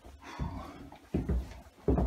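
Footsteps on bare wooden floorboards, a heavy step about every three-quarters of a second, with some rustling about half a second in.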